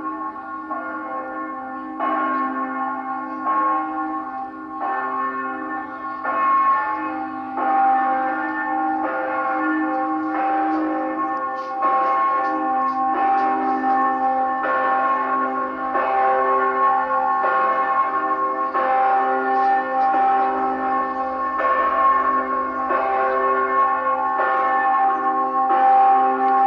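Church bells ringing: several bells of different pitches struck again and again at an unhurried pace, roughly once every second or so. Their tones overlap and ring on between strokes.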